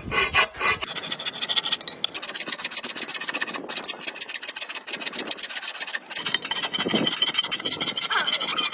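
A fast, steady rasping scrape, like a tool working against a hard surface, starting about a second in.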